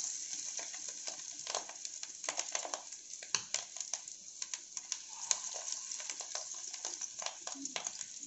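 Noodle and fish-roe pakoras deep-frying in hot oil in a pan: a steady sizzle with frequent crackles and pops.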